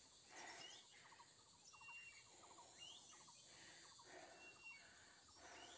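Faint forest birds calling: short high whistles and quick rising chirps, one every second or so, over a quiet background.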